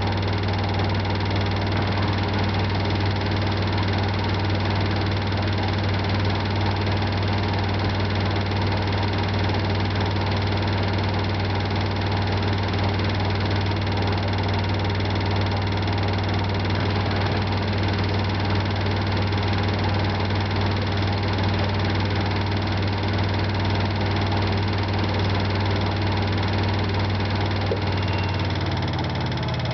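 LG 12B8ND washing machine on its spin cycle: a steady hum of the spinning drum with a clicking noise over it, which comes from the lower right side and appears only with laundry in the drum, never with it empty. The hum shifts in pitch near the end as the spin speed changes.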